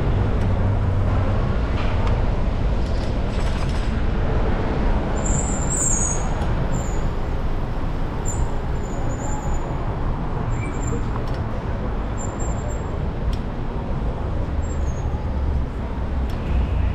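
Street traffic and wind rushing over the microphone of a moving e-bike: a steady rush with a low rumble. Several short high squeaks come and go from about five to fifteen seconds in.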